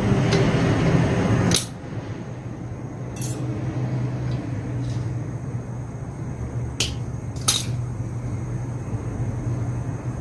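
Handling sounds of a new fuel filter being fitted into a Honda GX35 brush cutter's fuel tank. A louder rustle in the first second and a half is followed by a few sharp clicks, over a steady low hum.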